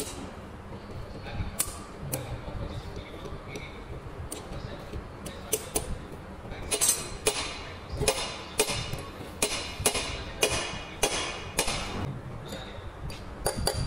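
Metal tools clicking and clinking against the cast pressure plate and release levers of a tractor dual-clutch assembly while the fingers are adjusted. The clicks are sharp and ringing and irregular, sparse at first, then a denser run of about two a second from about seven seconds in until near the end.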